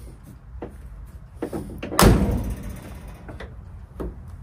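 The steel cab door of a 1952 Willys truck swung shut with one loud slam about two seconds in. A few lighter knocks come before and after it.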